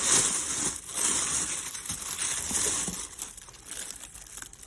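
Packaging rustling and crinkling as it is handled, loudest for about the first three seconds and then fading.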